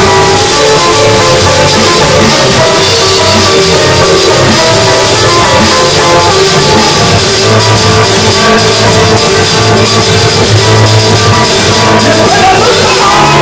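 Loud live church band music with guitar and a drum kit playing an instrumental passage between the choir's sung verses.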